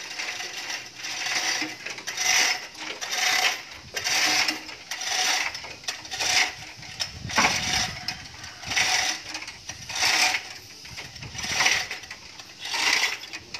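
Manual chain hoist being hand-pulled in strokes about once a second, its chain rattling and clinking through the block while it lifts a car engine out of the engine bay.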